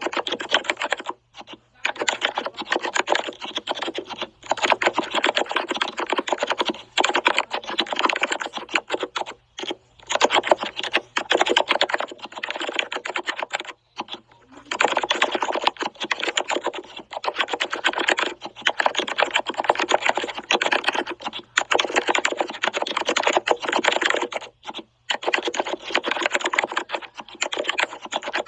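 Fast typing on a keyboard: dense runs of key clicks broken by short pauses every few seconds.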